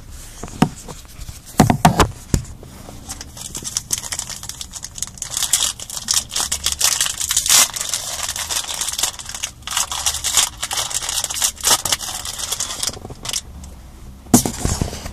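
A Yu-Gi-Oh! foil booster pack being torn open and crinkled by hand: an irregular run of crackling and tearing, with sharp clicks and knocks from handling here and there.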